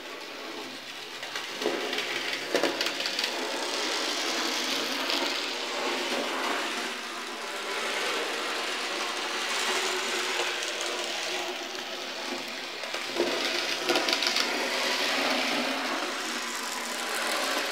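Bachmann Rusty narrow-gauge (HOn30) model locomotive whirring as its small electric motor hauls a short train of trucks around the track, louder in two spells as it passes close, with a few sharp clicks.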